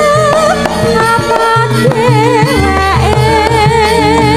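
A sinden, a Javanese female singer, sings a wavering, ornamented melody. Gamelan backs her with struck metallophone notes and a hand drum.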